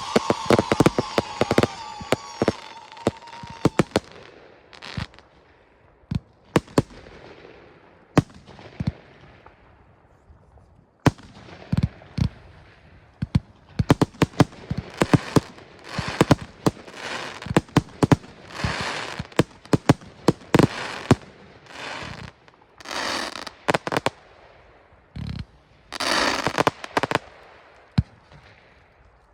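Display fireworks going off: a high whistle with fast crackling for the first few seconds, then a string of sharp bangs from bursting shells, with several short bursts of crackle between them.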